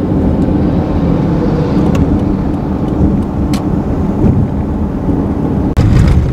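Steady low road and engine rumble heard inside a moving car at highway speed, with a few faint clicks. It cuts out for an instant near the end and returns louder.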